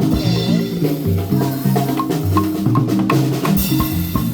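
Background music with a steady beat: drums, percussion and a moving bass line.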